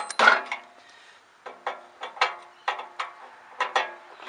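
A kerbing machine's front transit wheel being worked off its steel mounting bracket: metal clanking and clicking, with a loud clatter at the start and then about seven sharp knocks, some with a short ring.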